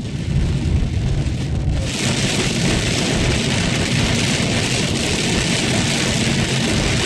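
Heavy rain pelting the car's windshield and roof, heard from inside the moving car, with low engine and road rumble underneath. The hiss of the rain jumps suddenly louder about two seconds in and stays that way.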